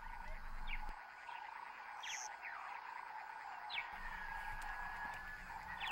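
Shiny burrowing scorpion hissing in defence, a warning to an intruding mouse: several short strokes, spaced irregularly, over a faint steady hum.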